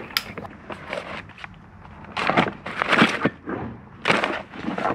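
Hands rummaging through a plastic bucket of packets and boards: plastic packaging crinkling and items knocking together in several bouts, loudest a couple of seconds in and near the end.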